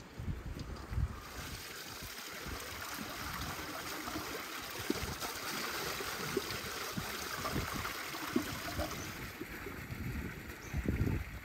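Water running from a stone fountain's spout and splashing steadily over the stone. It starts about a second in and eases off near the end.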